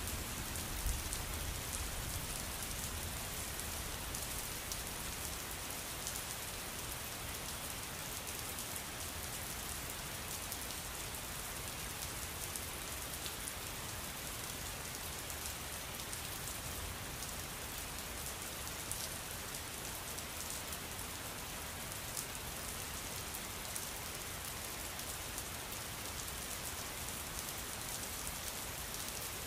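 Steady rainstorm: a continuous rain hiss with fine scattered drop ticks, and a low rumble dying away in the first couple of seconds.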